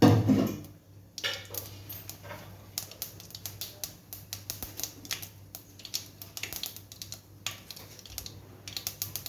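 A thump at the start, then mustard seeds crackling and popping in hot oil in a pan: dense, irregular sharp clicks as the tempering splutters.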